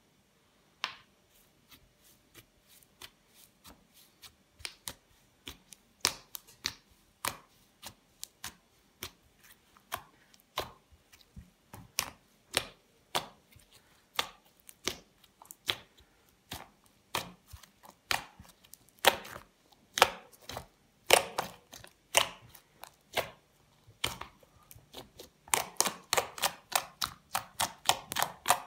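Crisp, sharp clicks and crunches from a soft play material such as slime or kinetic sand being pressed and cut by hand, irregular at one to three a second, coming faster and louder near the end.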